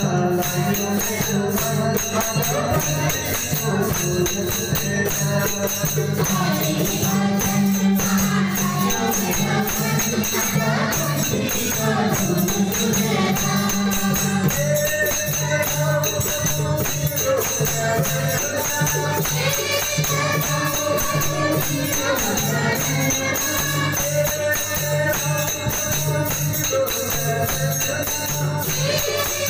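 Nepali devotional bhajan sung by a group, a woman's amplified lead voice with others singing along, over a steady beat of jingling percussion.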